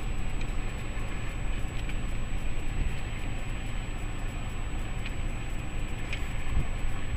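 Steady low vehicle rumble of idling engine and traffic heard from inside a car's cabin with the window open, with a couple of faint ticks near the end.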